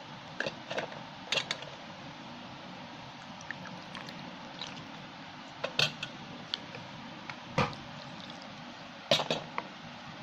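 Wooden spatula knocking and scraping in a stainless steel bowl while dry flour and spice paste are stirred, with a few sharp clinks spread through; water is poured in from a small cup partway through.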